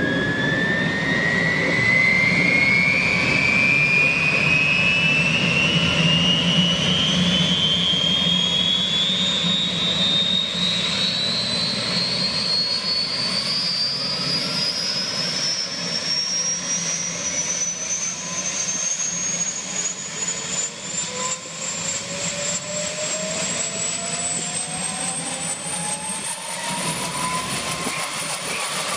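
Kaman K-MAX K-1200 helicopter's turboshaft engine spooling up during start-up: a high whine rising steadily in pitch throughout. A second, lower whine starts to climb about two-thirds of the way through, and the intermeshing rotors beat underneath.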